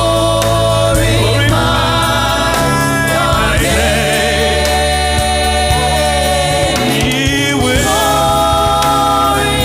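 Gospel choir singing long held notes over band accompaniment with a steady bass; one chord is held for about three seconds midway before the voices move to a new note.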